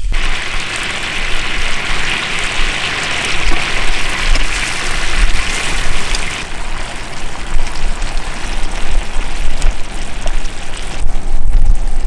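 Spicy-sauced pork back ribs sizzling on a hot griddle over a gas camp stove: a steady, dense hiss, loudest in the first half and easing off a little after about six seconds, with a low rumble underneath.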